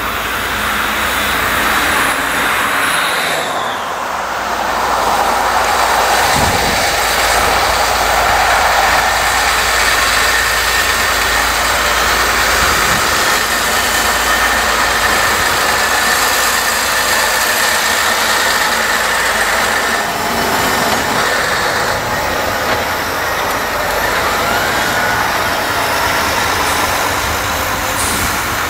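Several diesel tractor engines working together under load, running steadily as tractors drive over and push chopped maize on a silage heap while one raises a tipping trailer to unload.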